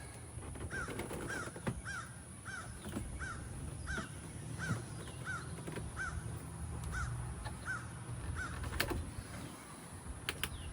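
A bird calling in a steady series of about a dozen short, arched notes, roughly one and a half a second, with scattered light knocks and clicks from work going on.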